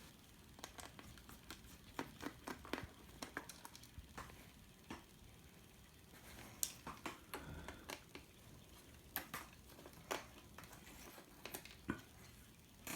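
Faint, irregular clicks and light scrapes of a small screwdriver and fingers on the plastic of an ASUS X505ZA laptop screen while its two bottom screws are taken out.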